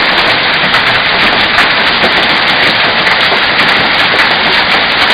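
Heavy hail and rain pelting hard surfaces, a dense, loud, steady clatter of many small impacts.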